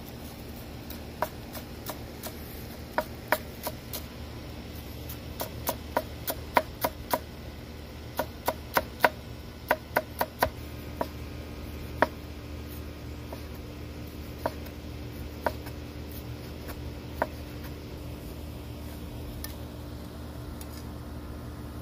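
Cleaver-style kitchen knife chopping green onions on a plastic cutting board: irregular sharp knocks of the blade on the board, coming quickly in the middle, then spaced out and stopping well before the end. A steady low hum runs underneath.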